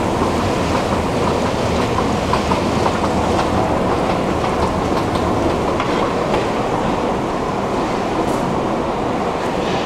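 Steady mechanical rumble with scattered light clicks and clatter in a metro station. It eases slightly near the end.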